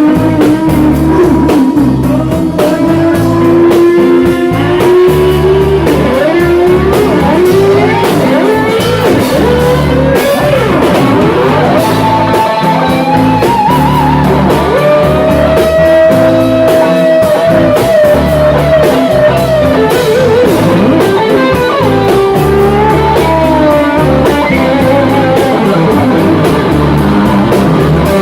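Live rock band playing an instrumental passage: electric lead guitar with bent, sliding notes over bass guitar and drum kit.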